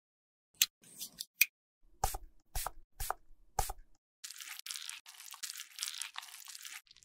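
About half a dozen sharp clicks and taps, then from about four seconds in a continuous scratchy scraping: a plastic stick scraping old lipstick residue out of a clear plastic lipstick holder.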